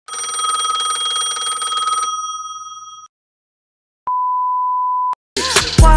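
Telephone ringing with a rapid trilling ring for about two seconds, then fading out. After a short silence a steady electronic beep sounds for about a second, and music starts near the end.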